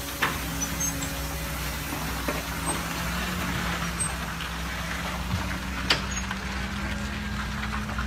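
Diesel engine of a heavy log truck running steadily at low speed as it pulls its loaded timber trailer around a tight bend. A few short, sharp sounds break in, the clearest about six seconds in.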